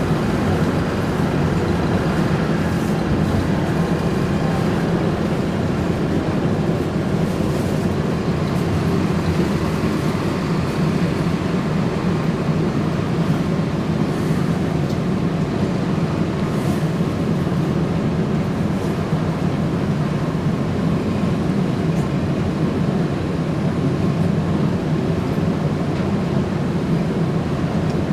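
Steady rumble and hum heard inside a TTC CLRV (Canadian Light Rail Vehicle) streetcar, with no breaks or sudden events.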